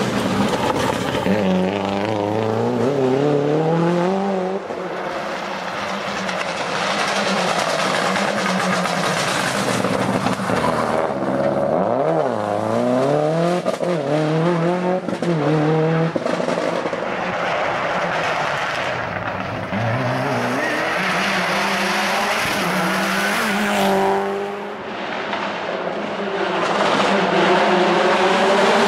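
Subaru Impreza rally car's turbocharged flat-four engine revving hard under acceleration, the pitch climbing and then dropping at each gear change, several times over.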